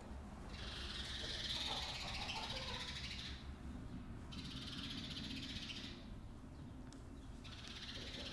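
Ambience inside a chicken barn: three bursts of high, raspy calling, the first about three seconds long, the next two shorter, over a low steady hum.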